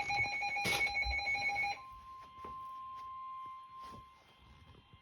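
Emergency alert warning tones: a loud, pulsing multi-tone alert with a click near the start, which stops abruptly just under two seconds in. A quieter single steady tone follows for about three seconds and fades near the end.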